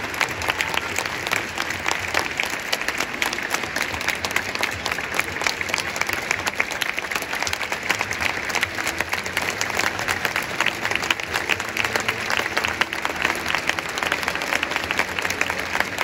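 Stadium crowd applauding steadily, with many hands clapping close by in the stands.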